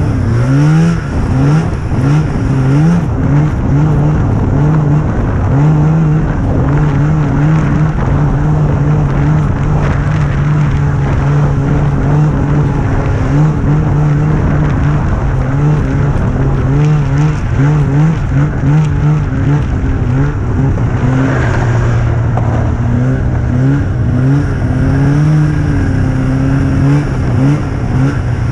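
Small youth racing snowmobile engine heard from the sled itself, its pitch rising and falling over and over as the throttle is worked on and off. It runs steadier in the last few seconds.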